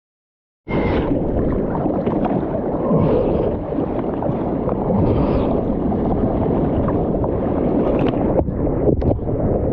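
Wind buffeting the camera microphone over rushing, splashing seawater in the surf. It begins abruptly under a second in, after silence, and then runs on as a dense, steady rumble with a few brief splashes.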